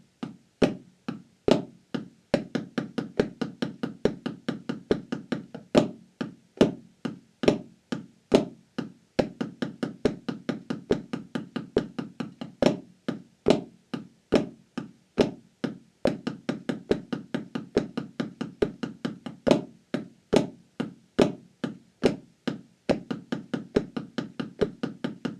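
Drumsticks playing flam taps on a practice pad: a fast, even stream of sticking strokes with a louder stroke on each beat, about seventy to the minute.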